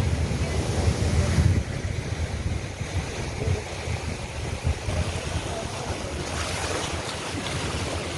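Stormy wind buffeting the microphone over the rush of rough sea surf, heaviest in the first second and a half, then easing to a steadier rush.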